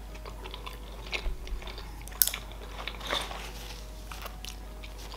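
Close-miked chewing of a salmon sushi roll: scattered soft, wet mouth clicks and smacks, the sharpest about two seconds in.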